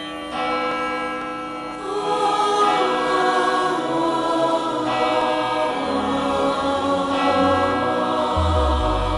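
Devotional choral music: voices singing over sustained instrumental accompaniment, growing fuller about two seconds in, with a deep bass coming in near the end.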